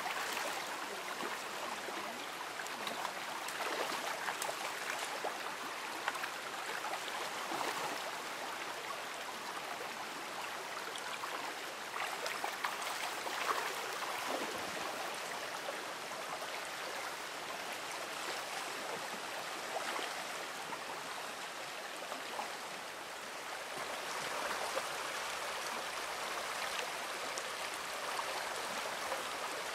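Shallow creek water running steadily over a rocky bed.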